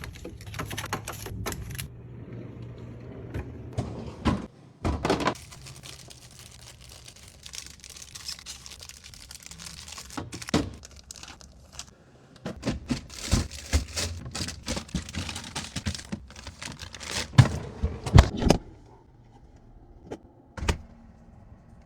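Household items and containers being handled and set down: a run of clicks, knocks and clatters with some rustling, the loudest two knocks about 17 and 18 seconds in.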